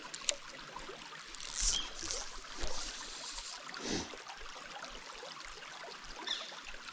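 Shallow river running over rocks, a steady rush of water, with a sharp click just after the start and a few brief faint swishes.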